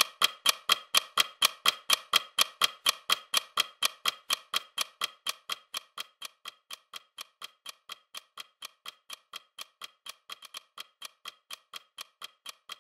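Rapid, even clock-like ticking, each tick a sharp pitched click. It fades over the first several seconds, then carries on steadily and quieter.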